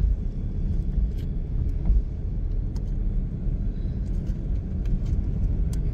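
Steady low rumble of a car driving along a paved road, heard from inside the cabin, with a few faint ticks.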